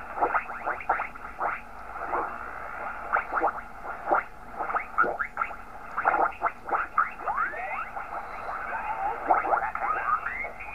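Yaesu FT-101B transceiver's receiver audio as the tuning dial is swept across a crowded 20-metre band: a rapid run of garbled single-sideband voices sliding in and out of tune, their pitch gliding up or down as each station passes, over a steady hiss. The band is packed solid with contest stations.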